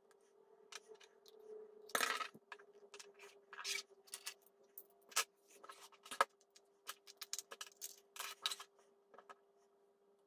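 Thin clear plastic egg shell and a hot glue gun being handled on a tabletop: a run of light plastic clicks, taps and crinkles, the loudest cluster about two seconds in. A faint steady hum runs underneath.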